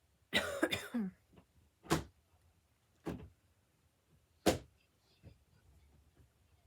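A brief voice near the start, then three short sharp knocks spaced about a second apart.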